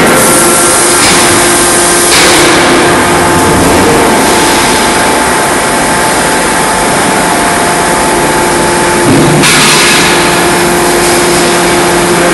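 Forging-shop machinery running: a loud, steady mechanical drone with a constant hum, and a brighter hiss swelling up about nine seconds in. No distinct hammer blows.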